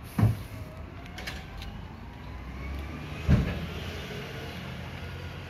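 Garbage truck running steadily down the street, with faint gliding whines over the low engine rumble. Two heavy thumps about three seconds apart, one just after the start and one past the middle, are the loudest sounds.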